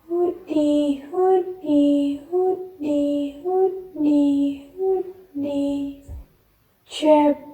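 A high voice sings the word "hoodie" over and over on a falling two-note tune, about six times, with a short pause near the end before it starts up again.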